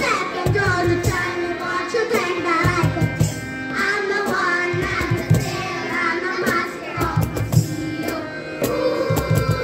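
A group of young girls singing a song together into microphones, over music with a drum beat.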